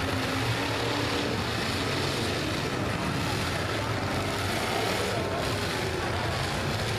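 Demolition derby cars' engines running and revving together in the arena, a steady mechanical din.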